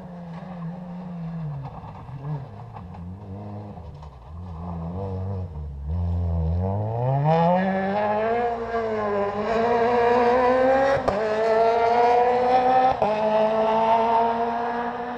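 Rally car engine across the valley: the revs drop as it slows about six seconds in, then it accelerates hard, the pitch climbing in steps through several gear changes and growing louder as it comes nearer. Two sharp cracks come near the end.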